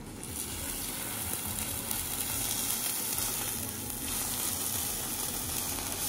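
Food sizzling as it fries in a pan: a steady, hissing sizzle that starts abruptly.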